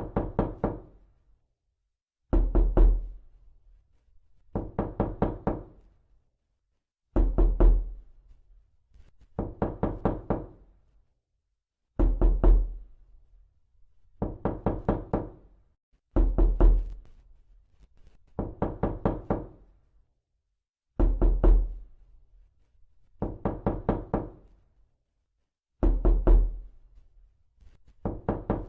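Repeated knocking in quick groups of about three to six rapid knocks. A new group starts roughly every two and a half seconds, with dead silence between groups.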